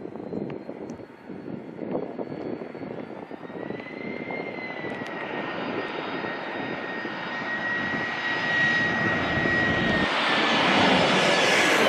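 Jet airliner engines getting steadily louder as the plane comes in low, a high steady whine over a growing roar that peaks near the end, the whine dropping slightly in pitch as it passes.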